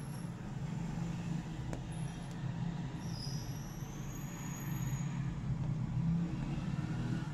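Steady low rumbling background hum, with a faint rising high whistle about three seconds in.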